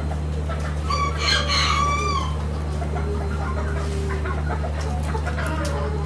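A rooster crows once, about a second in, for about a second and a half, the call ending on a falling note, over a steady low hum.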